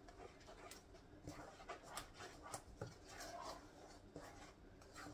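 Faint scraping and soft clicks of a wooden spoon stirring a thick melted peanut butter and honey mixture in a pot.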